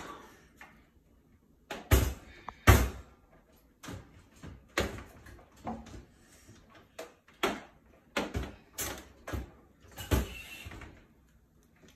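A string of separate sharp knocks and clunks as a metal toaster is set on a kitchen counter and handled, the loudest two coming about two seconds in.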